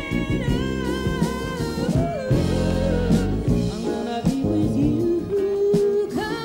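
A woman singing a ballad into a microphone over a live band with drums, holding one note for about a second near the end.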